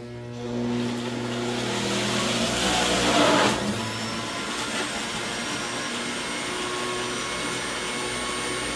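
Breville centrifugal juicer running, grinding produce as it is pushed down the feed chute. It is loudest about three seconds in, then runs on steadily.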